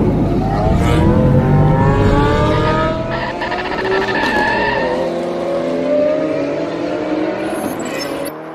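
A race car engine accelerating hard, its note climbing, dipping once about halfway through at a gear change, then climbing again. It fades as the car pulls away and is cut off sharply near the end.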